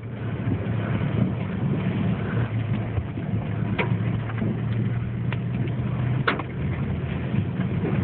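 Tornado winds blowing hard around a car whose engine hums steadily at idle, with a few sharp knocks, the clearest about four and six seconds in.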